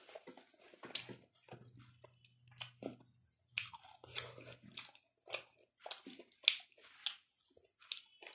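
Close-up chewing with wet lip smacks and mouth clicks, several a second and uneven: a person eating spicy instant noodles and boiled pork fat.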